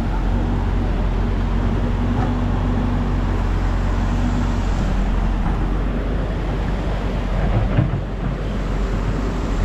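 Steady road-traffic noise with an engine running close by; one of its low hums drops away about halfway through.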